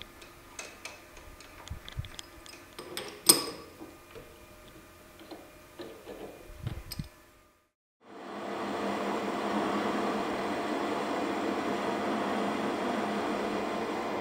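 Clicks and knocks of metal parts being handled as a motor armature is set up in a metal lathe, with one sharp loud click about three seconds in. After a brief gap, the lathe runs steadily with a humming whine, turning down the shoulder on the armature's steel shaft.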